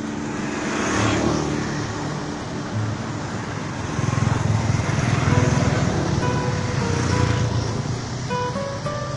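Motor-vehicle traffic noise with a low rumble that swells about four seconds in, under quiet acoustic guitar music.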